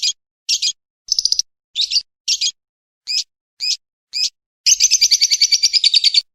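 Bird calls: eight short, shrill chirps, about two a second, then a fast rattling trill from near five seconds that cuts off just before the end.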